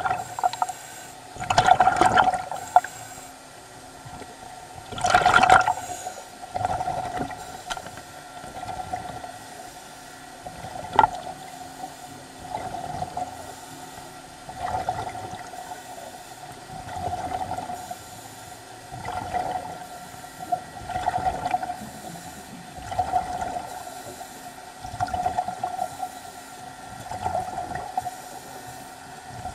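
Underwater, a diver's breathing apparatus whooshing and bubbling in a regular rhythm, a swell about every two seconds. The swells are louder and fuller in the first few seconds, and there is a single sharp click about eleven seconds in.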